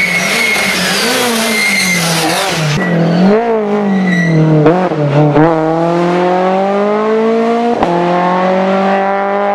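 Citroën C2 rally car's four-cylinder engine at full effort through a cone slalom, revs rising and falling repeatedly as it lifts and accelerates between gates, then climbing steadily and jumping up near the end. A brief tyre squeal in the first couple of seconds.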